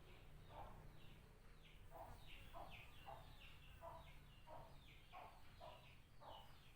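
Faint bird calls repeating at about two a second, each a short falling chirp, over a steady low hum.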